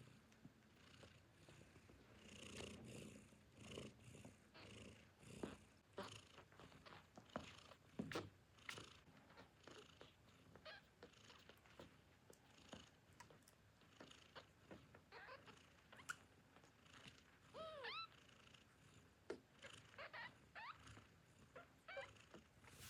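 Newborn kittens nursing: soft purring with many small wet suckling clicks and smacks. About three-quarters through, a kitten gives one short, falling squeak.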